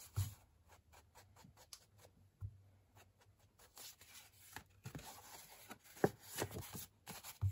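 Faint scattered taps and soft rubbing from a sponge dauber dabbed on an ink pad and from folded paper pages being handled and unfolded on a wooden table. The rubbing gets a little louder about halfway through, with a sharper tap a second or so later.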